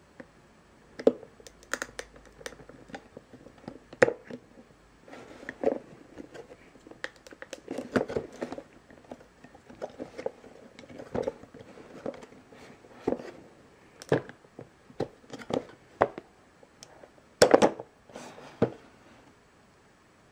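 Irregular clicks, knocks and scrapes of hard plastic as a GoPro Hero3+'s clear waterproof housing and its mount are handled and worked off the stand on top of the retail box. The loudest cluster of knocks comes near the end.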